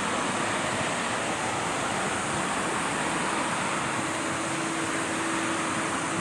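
Airbus A330-200 airliner taxiing, its jet engines giving a steady, even rush of noise. A faint steady tone joins about four seconds in.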